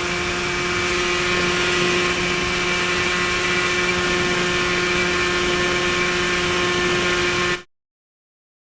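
Motorcycle engine held at high revs in sixth gear during a top-speed run, its pitch steady after a slight rise over the first two seconds. The sound cuts off abruptly near the end.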